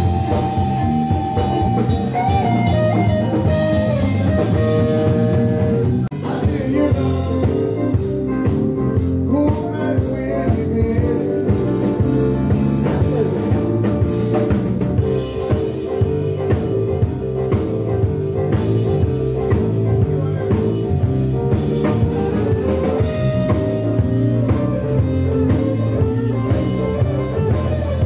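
Live blues band playing: electric guitars, bass, drum kit and electric stage piano over a steady beat.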